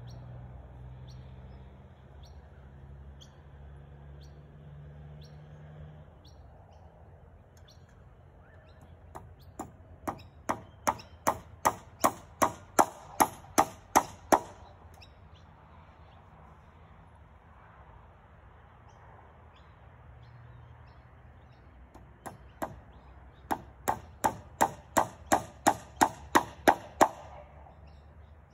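Hammer driving nails into a treated-pine roof beam: two runs of about a dozen blows each, at about three a second, the blows growing louder as each run goes on.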